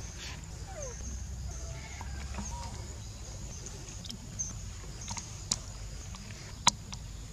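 Forest ambience: a steady high insect buzz with a few short chirps, then three sharp clicks or snaps in the second half, the loudest near the end.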